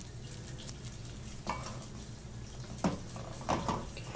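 Hands packing moist rice pilaf stuffing into a pocket cut in a raw chicken breast: a few short, soft handling sounds over a low steady hum.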